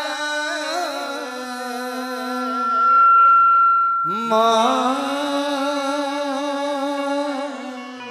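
A man singing a Bhojpuri chaita folk song into a microphone, in two long drawn-out phrases with wavering pitch; the second phrase begins about four seconds in and fades near the end.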